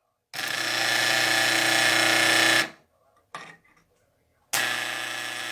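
Homemade spot welder built from a microwave oven transformer buzzing loudly while it is switched on and welding, in two bursts: one of about two and a half seconds, then a second starting near the end.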